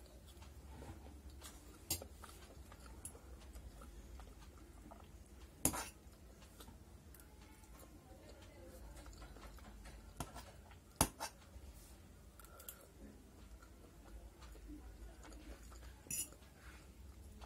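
Metal cutlery clinking and scraping on a steel plate of macaroni, with a few sharp clinks, loudest about six and eleven seconds in. Soft chewing comes between them.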